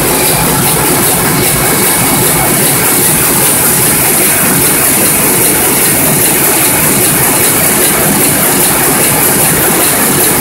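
KBA sheetfed offset printing press running at production speed: a loud, steady mechanical din with a strong hiss.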